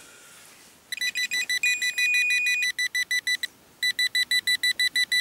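Metal-detecting pinpointer probe beeping in fast, high-pitched pulses, about eight a second, that run together into a continuous tone for a second or so, stop briefly, then pulse quickly again: the probe is picking up a buried metal target in the hole.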